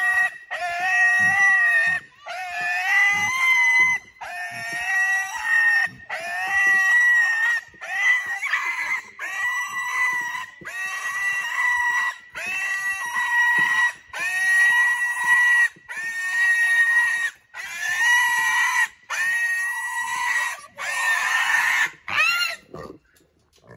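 Juliana mini pig squealing while being carried in someone's arms: a long, high-pitched squeal roughly every two seconds, each lasting about a second and a half, with short breaks between, stopping near the end.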